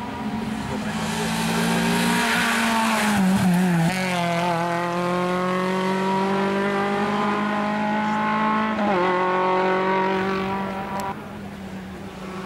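Race car engine pulling hard up a hill-climb course, its note climbing through the gears with sharp pitch drops at shifts about four and nine seconds in. The sound falls away suddenly near the end as the car moves out of earshot.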